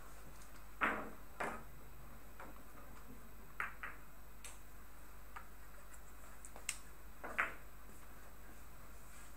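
Billiard shot on a pocketless Italian billiards table: a sharp click of the cue tip on the ball about a second in, then a scattered run of sharp clicks as the balls strike each other and knock against the cushions.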